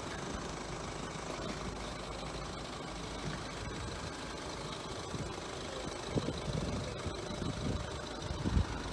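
Ford Transit Custom van's diesel engine idling steadily, with a few louder low knocks about six seconds in and near the end.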